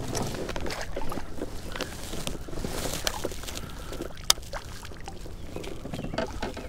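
Scattered knocks, clicks and splashing in a small fishing boat as a freshly caught bass is handled, with one sharp click about four seconds in.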